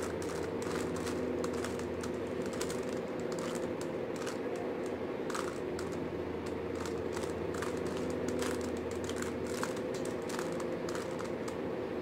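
Plastic 3x3 Rubik's cube being turned by hand, its layers clicking and clacking in quick, irregular runs of twists over a steady low hum.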